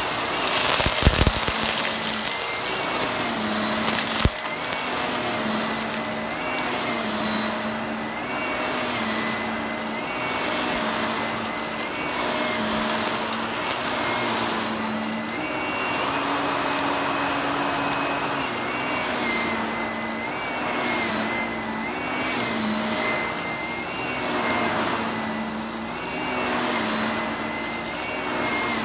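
Upright vacuum cleaner running on carpet, its motor pitch stepping up and down about every two seconds as it is pushed back and forth, with crunching from the brushroll picking up debris. Two sharp knocks about one and four seconds in.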